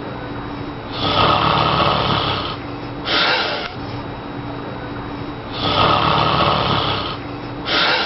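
A man snoring loudly: two long snores about four and a half seconds apart, each followed by a shorter, breathier burst.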